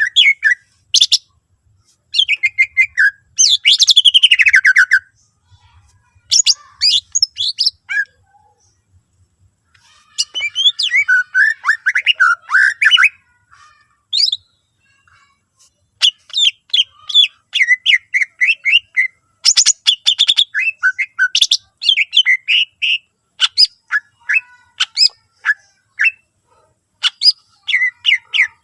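Green leafbird (cucak ijo) singing loudly in rapid bursts of chirps, whistles and trills. A loud descending trill comes a few seconds in, there are a couple of short pauses, and a dense run of short chirps fills the second half.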